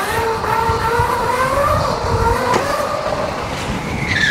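Solar Eclipse 2.0 electric dirt bike's motor whining under way, the whine climbing slowly in pitch as the bike gathers speed, over a low rumble of wind and road noise. A sharp knock comes about two and a half seconds in, and near the end a higher whine sets in and slides down in pitch.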